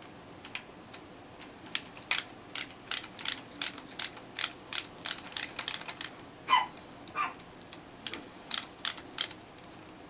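Quick run of sharp small clicks, about two to three a second, as the screws of an out-the-front knife's handle plates are worked with a small driver. Two brief squeaks falling in pitch break the run about two-thirds of the way through.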